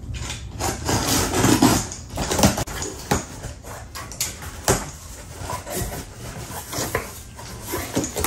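Cardboard shipping box being opened, its tape slit with a box cutter and its flaps pulled back: irregular scraping, rustling and knocks of cardboard.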